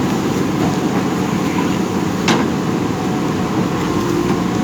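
JCB 3DX backhoe loader's diesel engine running steadily under work, with one sharp knock about two seconds in.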